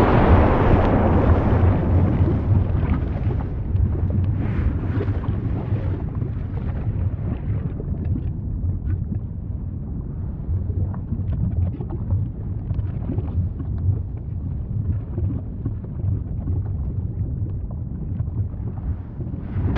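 Volcano rumbling with a deep, continuous roar, loudest at the start, easing off through the middle and swelling again at the very end.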